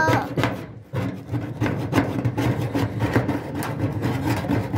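Hand paint scrapers, a flat scraper blade and a utility knife, scraping old paint off a painted chest in quick, uneven strokes, with a short lull just under a second in.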